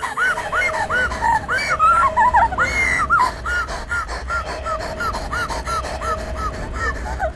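A woman crying hysterically in rapid, repeated high-pitched gasping cries, about three a second, louder in the first few seconds and weaker after. A steady hum runs beneath.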